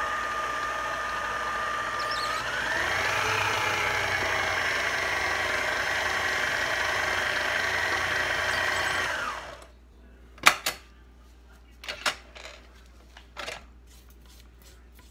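Electric mixer motor beating chocolate frosting. Its whine steps up in pitch a couple of seconds in as the speed is raised, then switches off after about nine seconds. A few sharp knocks follow.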